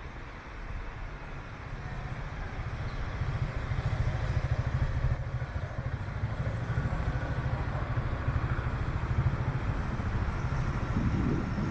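Low, steady rumble of a motor vehicle in city street traffic, building over the first few seconds and then holding.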